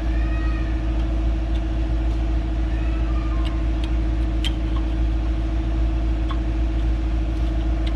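A motor running at a steady speed, giving a constant low hum with a steady tone in it, with a few light clicks and taps over it.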